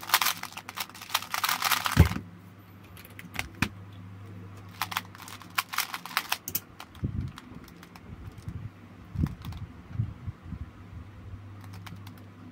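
A 2x2 speedcube turned very fast in a dense run of plastic clicks for about two seconds, ending in one sharp knock as the timer is stopped. Another run of turning clicks follows a few seconds later, then a few soft thumps of the cube being handled.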